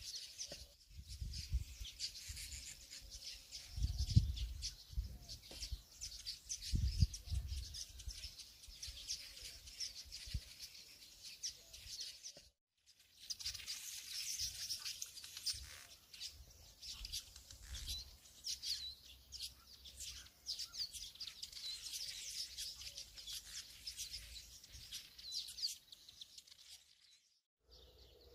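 Small birds chirping and twittering continuously, with a few dull low thumps in the first seven seconds; the sound drops out completely twice for a moment.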